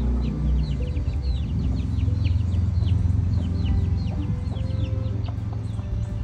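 Asil chickens calling: a quick run of short, high, falling peeps, several a second, over a steady low rumble.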